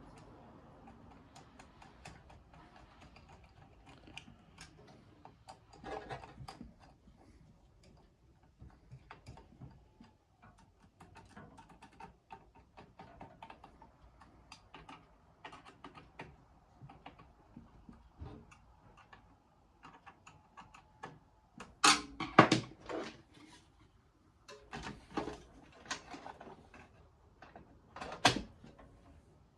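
Hands handling computer parts during a PC build: scattered light clicks and taps of plastic and metal, with a few sharper, louder knocks about two-thirds of the way in and again near the end.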